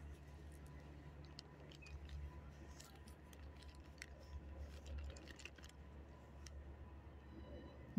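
Faint scattered crinkles and clicks of a plastic zip-top bag of dog treats being handled, the treats rattling inside as a hand reaches in.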